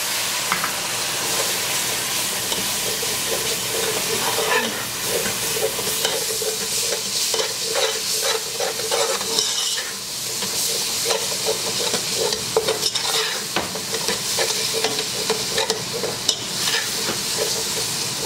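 Flour-and-oil roux with stock sizzling in a hot non-stick pan, while a spatula stirs and scrapes through the thickening paste in repeated strokes.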